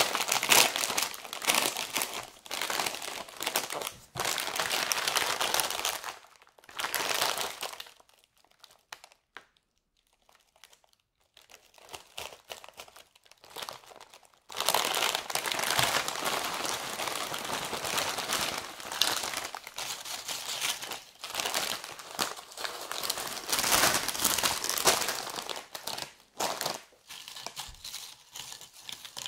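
Shiny plastic potato-chip bag crinkling as gloved hands open and handle it, with chips shifting inside. It comes in two long spells with a quiet pause between, and dies down to lighter rustling near the end.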